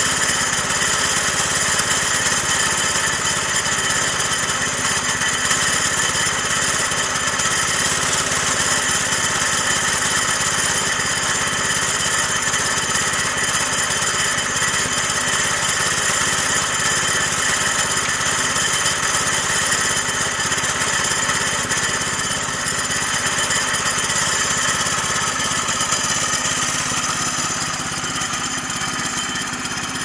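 The small single-cylinder gasoline engine of a Woodland Mills HM122 portable bandsaw mill, running steadily.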